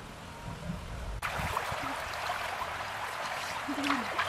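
Shallow stream running over stones: an even rushing of water that turns suddenly louder about a second in, with small splashes and ticks.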